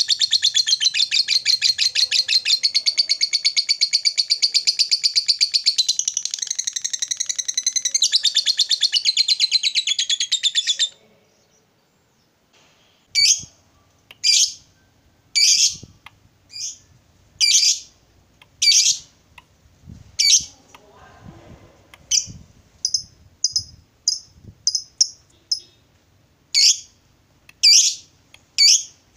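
Lovebird giving a long, very rapid chattering trill, the 'ngekek' prized by lovebird keepers, which cuts off suddenly about eleven seconds in. After a short pause it gives sharp single chirps about one a second, with a quicker run of them a little past halfway.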